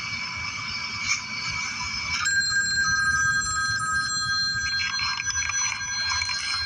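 A telephone ringing continuously with a bright, high ring made of several steady tones. The ring changes to a different set of tones about two seconds in.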